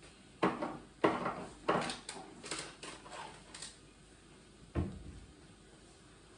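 Kitchen handling noises: a quick string of knocks and clicks in the first few seconds, then one heavier thump about five seconds in.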